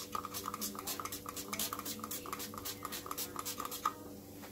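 Chips rattling and clacking in a shaken air fryer basket, in quick even strokes about five a second that stop about four seconds in. A sharp knock comes right at the end.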